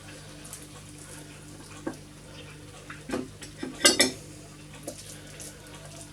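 A serving utensil clinking and scraping against the pot and plate as stew is dished up: a few separate clinks, the loudest about four seconds in, over a steady low hum.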